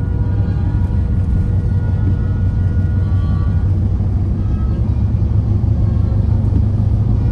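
Car driving along a road: a steady low rumble of road and engine noise.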